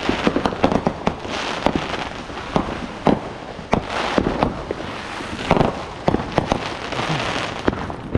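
Fireworks going off: a fast, irregular string of sharp bangs and pops, with stretches of crackling in between.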